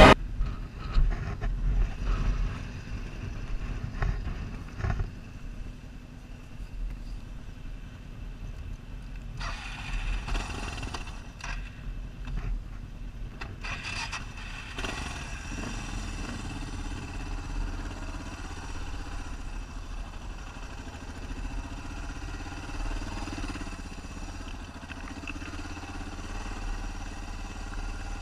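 Dual-sport motorcycle engine running as the bike is ridden along a dirt trail, picked up by a camera mounted on the bike. Two short spells of rushing noise come over it, about a third of the way in and again about halfway through.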